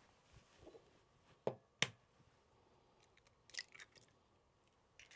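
A raw egg cracked with two sharp taps less than half a second apart, then a softer crackle about two seconds later as the shell is pulled open over a glass jug of sugar.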